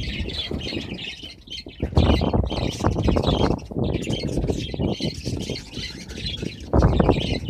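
A flock of small cage birds chirping and squawking together, over loud low rustling noise that swells about two seconds in and again near the end.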